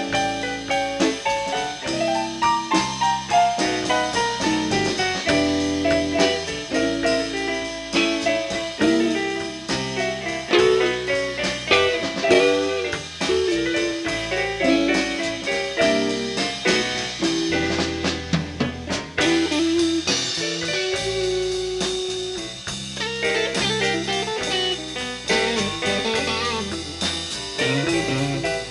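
Small live band playing an instrumental break in a bluesy jazz style: drum kit keeping time under electric guitar lines and bass.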